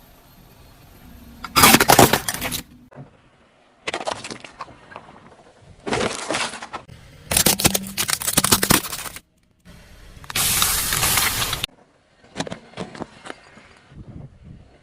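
Cracking and crunching of objects being crushed under a car's tyre, heard as about six separate bursts of one to two seconds each, cut one after another.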